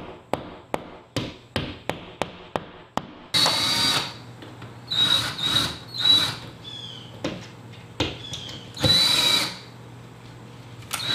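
Hammer tapping a plastic wall anchor into drywall, about three light taps a second. Then a drill drives a screw into the anchor in a short run and several brief stop-start bursts, the careful tightening that keeps the screw from stripping the anchor, with another run near the end.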